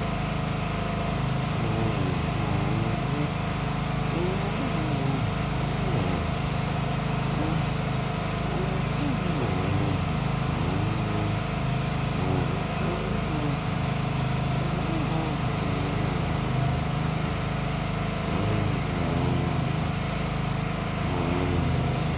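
Steady drone of a running engine, a constant hum that holds the same pitch throughout, with faint wavering sounds above it.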